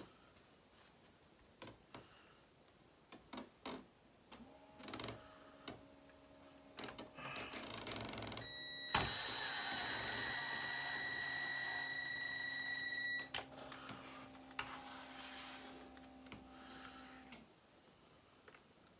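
Small parts clicking and rattling, then an electric screwdriver runs with a steady whine for about five seconds, about halfway through, driving a screw into the plastic RC chassis.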